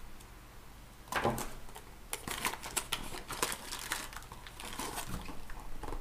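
Cardboard packaging being handled: a small cardboard box scrapes and rustles against the carton as it is lifted out. There is a run of short crackles and light knocks starting about a second in.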